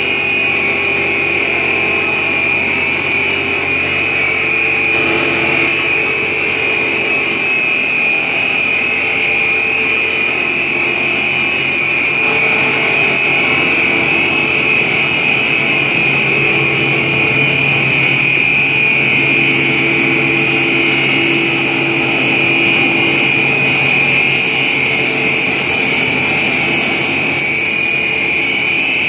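A 2400 mm stretch film machine running: a steady, loud machinery hum of its motors, gearboxes and blowers with a constant high whine on top.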